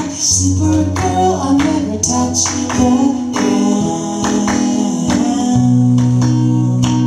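Acoustic guitar strummed about twice a second, with long wordless sung notes held over it during an instrumental break in a live acoustic song.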